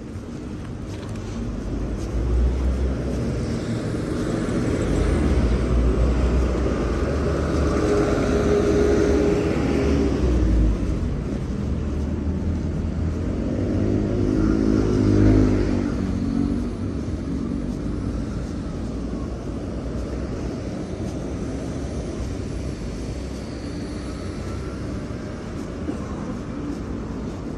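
Road traffic passing close by: engines and tyres of cars and trucks making a steady low rumble that rises and falls as vehicles go by, loudest in the first half.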